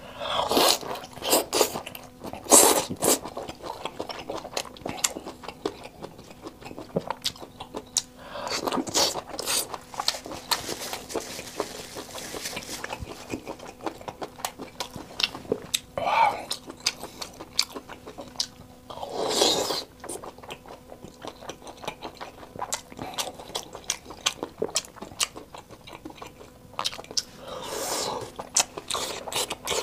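Close-miked eating: wet chewing and biting of a spicy-oil-soaked octopus and seafood skewers, many small sticky mouth clicks with a few louder bites or slurps.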